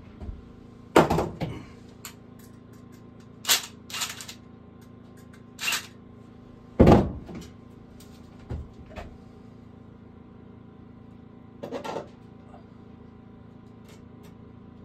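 Irregular wooden knocks and thuds from work on the cabin, about ten over the stretch and a second or two apart, the loudest about seven seconds in, stopping near twelve seconds.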